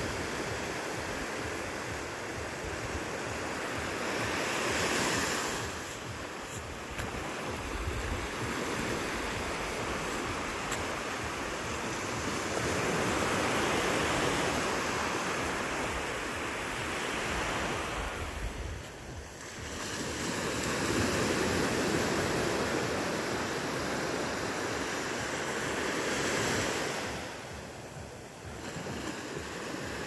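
Small ocean waves breaking and washing up a sandy beach, the surf swelling and easing every several seconds, about four times.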